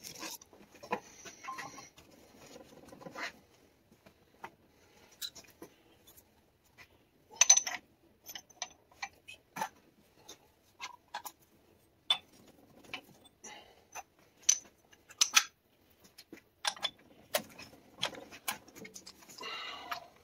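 Steel ball joint press C-frame and its adapter cups clinking and knocking against each other and the cast steering knuckle as they are handled and fitted. The clinks are scattered and sharp, a few ring briefly, with quiet gaps between.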